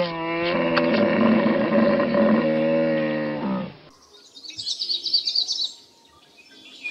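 A cow mooing in one long, steady call of about three and a half seconds, followed by a quick run of high chirps from a small bird.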